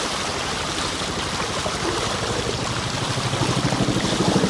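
A steady rush of floodwater. About three seconds in, the fast, even beat of a helicopter's rotor comes in and grows louder as it approaches.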